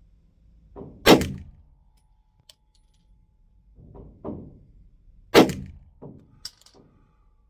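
Two loud 9mm pistol shots from a Glock 45, firing hot 124-grain +P HST loads, about four seconds apart, each followed by a short ringing tail. Several fainter low thumps fall between and after them.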